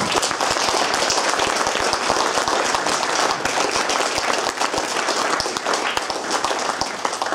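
Audience applauding: many hands clapping steadily, easing off near the end.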